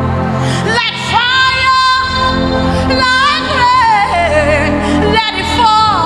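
A woman singing a gospel worship song with vibrato and sliding melodic runs over steady instrumental accompaniment.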